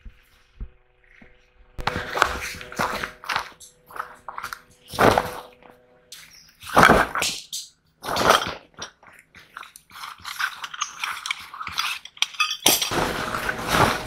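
Camping gear being handled and unpacked: rustling bags, scraping, occasional clinks and thunks, then the nylon fabric of a tent being pulled out and swished about. A few faint ticks at first, then dense irregular rustling and handling noise that changes abruptly several times.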